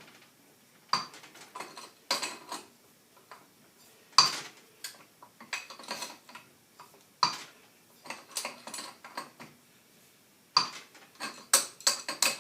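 Irregular sharp metallic clinks and clanks of steel tools as a pulley remover's screw is worked with a wrench to draw a rusted-on pulley off a power steering pump, some strikes coming singly and some in quick clusters near the end.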